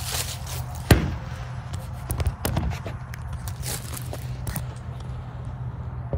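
Footsteps crunching through dry fallen leaves and gravel, with handling knocks and one sharp knock about a second in. Under them, a steady low rumble from the 2008 Chevy Silverado's 4.8-litre V8 idling through its exhaust with the muffler deleted.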